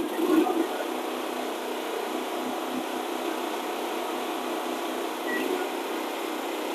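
Two Westinghouse 9500 open-frame portable generators running steadily together, a loud even engine drone with a low pulsing hum, with the food truck's appliances not yet switched on. A short thump just after the start.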